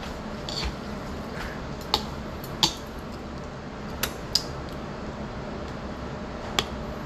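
Eating at the table: metal utensils clicking against ceramic dishes, five short sharp clicks at irregular spacing, with the two loudest about two seconds in.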